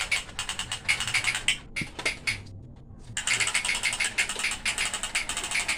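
Toy gun firing in rapid-fire bursts, a fast rattling clatter of clicks. It runs for about two seconds, stops for about a second, then starts again and carries on to the end.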